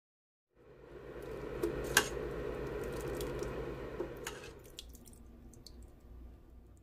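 Thick lentil soup pouring and splashing from a steel ladle into a ceramic bowl, with a sharp clink about two seconds in and more small clinks near four seconds; the pouring fades off about five seconds in.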